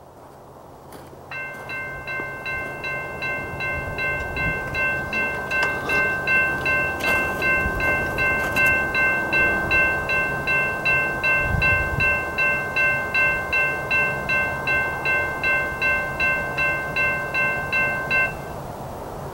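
Railroad grade-crossing warning bell ringing with rapid, even strokes. It starts about a second in and cuts off suddenly near the end.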